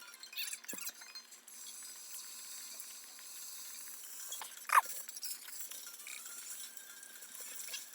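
Light clinking and small clattering sounds of hard objects, with one sharp, louder clink a little under five seconds in, over a steady faint hiss.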